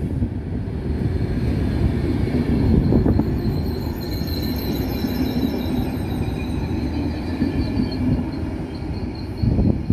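Passenger coaches of an intercity train rolling past on the station track: a steady low rumble of wheels on rail, swelling near the start and again near the end, with a thin, wavering, high wheel squeal over it from about three seconds in.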